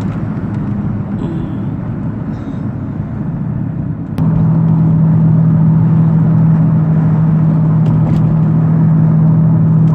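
Car driving: steady low road and engine rumble. About four seconds in, a steady low hum sets in and the noise gets louder.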